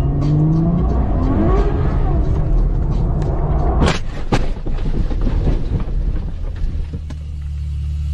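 A Ferrari's engine revving hard under acceleration, its pitch rising. About four seconds in comes a loud crash impact as the airbags fire, and a second bang follows half a second later. A low steady drone is left near the end.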